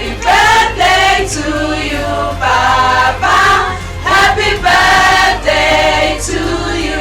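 Many voices singing together in chorus, in loud phrases that change pitch every half second or so.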